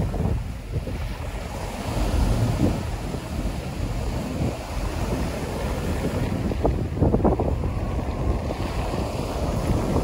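Small sea waves breaking and washing up a pebble beach in surging rushes, with wind rumbling on the microphone.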